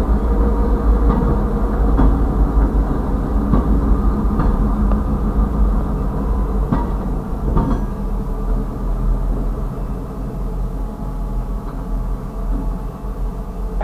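Diesel locomotive engines running with a steady low drone while a freight train's two locomotives pull past on the next track, the sound easing slightly as they move away.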